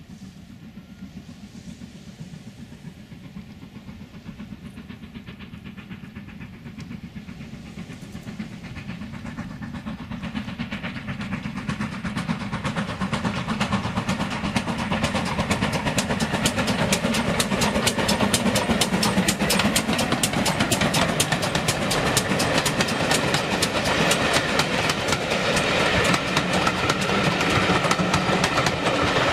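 A steam train approaching, growing steadily louder over the first dozen seconds, then running past loud with a fast, regular clatter of wheels over the rail joints.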